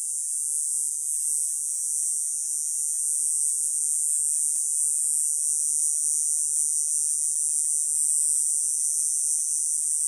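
Male cicada singing: a steady, high-pitched, unbroken buzz.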